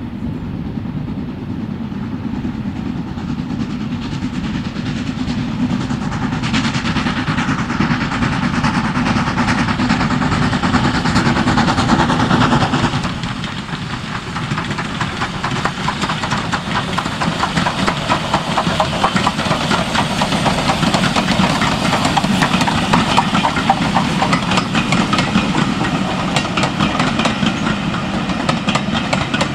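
Southern Railway S15 class 4-6-0 steam locomotive No. 847 hauling a passenger train past, growing louder as it approaches and dropping off sharply about halfway through as the engine goes by. After that the coaches roll past with a steady clatter of wheels over the rail joints.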